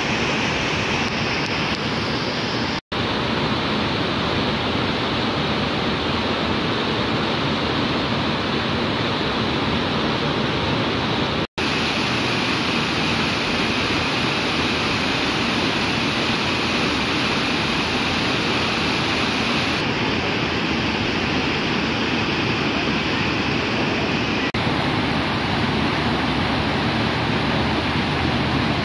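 Waterfall on a rocky river, white water pouring over and between the rocks in a steady rush. The sound cuts out for an instant twice, a few seconds in and again near the middle.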